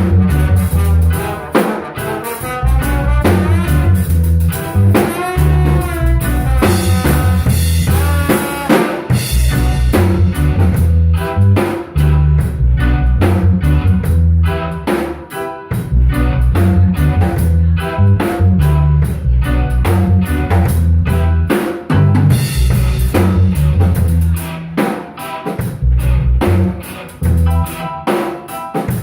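Live instrumental rock band playing, a busy drum kit with snare and rimshot hits under a running guitar line.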